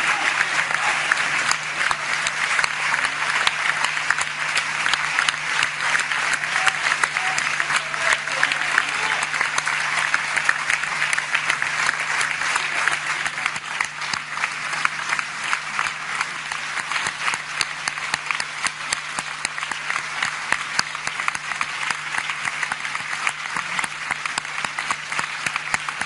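Large crowd applauding, a dense and sustained clapping that goes on without a break, with a steady low hum underneath.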